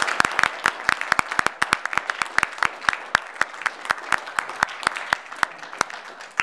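A small audience applauding, the clapping thinning out and growing quieter toward the end.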